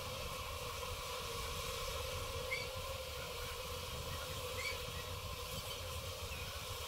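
Steady hum of a honeybee colony buzzing in its opened wall hive, disturbed while its combs are being pulled out. Two faint short chirps sound in the middle.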